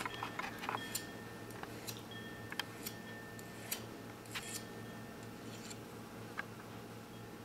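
Hand file working the edges of jewellery wire: light, irregular clicks and a few short scrapes of the file against the wire.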